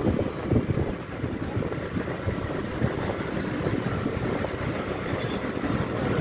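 Steady low rumble of a vehicle on the move, with no distinct events standing out.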